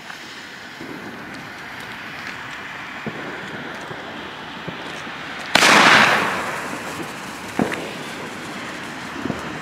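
Firework comet shot: a steady hiss, then about five and a half seconds in a sudden loud bang as the comet launches, with a hiss that fades over about a second, followed by a couple of faint pops.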